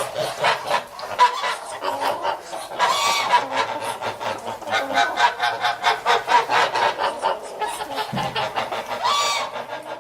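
A flock of geese honking and cackling in a dense, continuous chatter, with louder drawn-out honks about three seconds in and again near the end.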